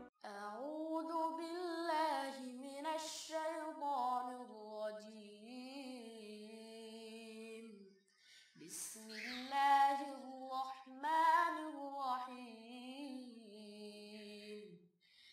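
A boy chanting Quran recitation in Arabic, unaccompanied, in long melodic phrases with drawn-out wavering notes, in two phrases with a short breath pause about halfway.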